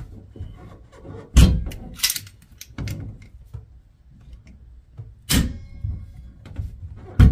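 Locking pliers clamped on a stuck Moen shower valve cartridge clacking and knocking as the cartridge is wiggled back and forth and pulled in the valve body. A handful of sharp knocks, loudest about a second and a half in and again near the end.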